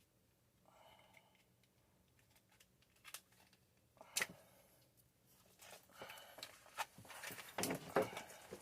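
Handling noise as the new sump pump and its pipe are set into the pit: a few isolated knocks, then a busier stretch of knocks and scrapes in the last few seconds, over a faint low hum.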